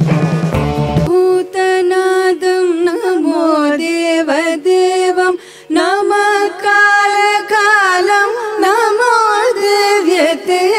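A Sanskrit Shiva hymn in a Carnatic style opens with a solo voice singing a slow, wavering melodic line without words over a faint steady drone. A low sustained note cuts off about a second in.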